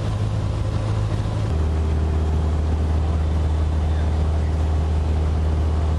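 Steady drone of a light aircraft's piston engine and propeller heard from inside the cabin, shifting lower in pitch about a second and a half in and then holding even.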